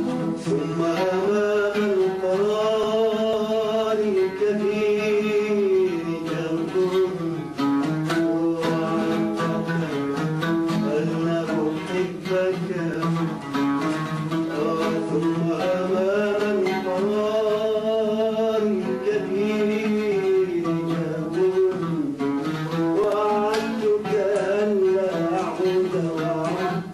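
Oud played with a man's voice singing a slow Arabic melody over it, with long held notes that bend up and down.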